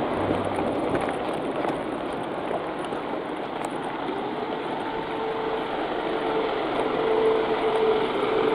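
Road traffic noise on a town street, with a vehicle's engine hum coming in about halfway through and growing slightly louder.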